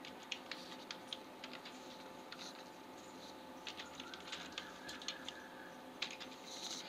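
Computer keyboard keys being typed, faint scattered clicks at an uneven pace.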